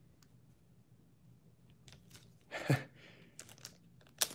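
Mostly quiet room, broken about two and a half seconds in by one brief vocal sound that falls in pitch, then a few light, sharp clicks near the end.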